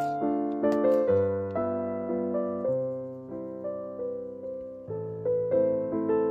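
Background piano music, a slow run of ringing notes. In the first second a knife chops twice through parsley onto a wooden cutting board.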